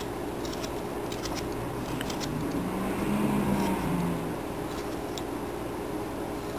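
Carving knife slicing small chips from a wood carving, a few faint sharp clicks over a steady hum. A vehicle passes, its engine rising then falling in pitch from about two and a half to four and a half seconds in, the loudest sound.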